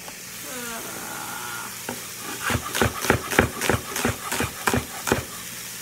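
Chef's knife chopping an onion on a wooden cutting board: quick, even knocks of the blade on the board, about three or four a second, starting about two and a half seconds in.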